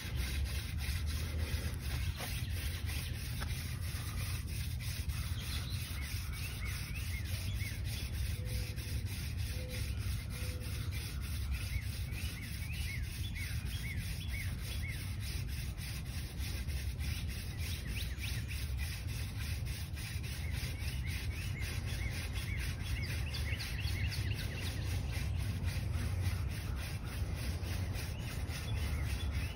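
Horseweed hand-drill spindle spun back and forth between the palms, its tip grinding in a tulip poplar fireboard with a steady rubbing: burning in a new divot for a friction fire.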